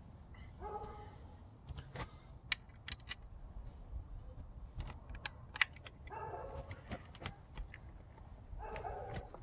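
Small metal hardware clicking and clinking as handlebar clamp bolts and parts are handled and fitted at the fork top clamp of a 49cc pit bike: many short, sharp ticks, one louder clink a little past halfway. Three brief vocal sounds come through about a second in, near two-thirds through and near the end.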